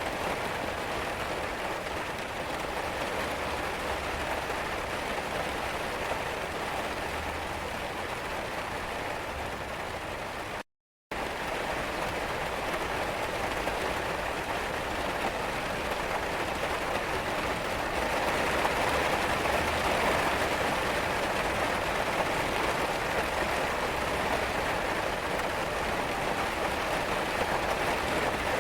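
Steady rain falling, an even hiss of many drops. About eleven seconds in it cuts to dead silence for a split second, and it is a little louder in the second half.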